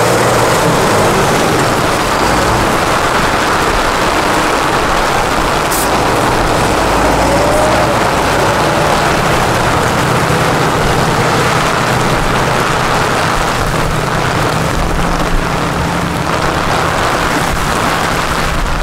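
Tatra 8x8 trial truck's diesel engine running steadily as it crawls through a deep mud pit, with rain hissing over it.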